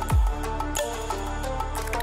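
Background music with a beat: a deep kick drum that drops quickly in pitch, crisp percussion hits and held synth notes.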